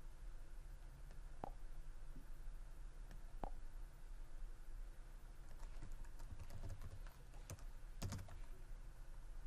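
Two single clicks, then a short run of typing on a computer keyboard, a handful of keystrokes over about three seconds, over a low steady hum.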